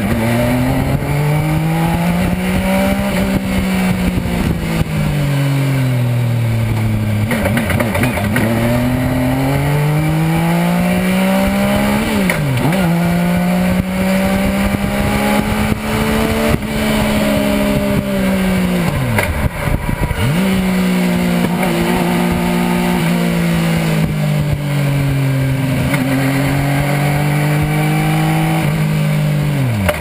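Legend car's Yamaha motorcycle engine run hard around a circuit, heard from inside the cockpit. The engine note climbs and falls again and again with the throttle, and cuts sharply a few times before picking up again.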